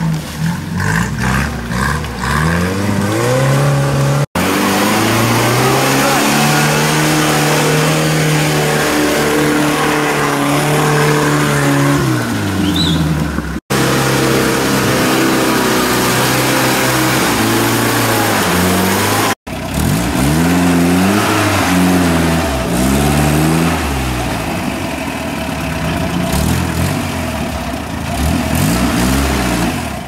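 Off-road 4x4 engines revving hard under load as they push through mud and climb, the pitch rising and falling again and again. The sound breaks off abruptly three times at cuts between different vehicles.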